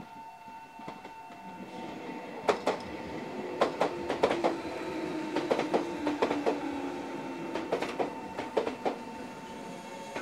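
Red Meitetsu electric commuter train passing close at a level crossing, its wheels clicking sharply over the rail joints and crossing, with a motor whine that slowly falls in pitch as the train slows. A level-crossing warning bell rings steadily underneath.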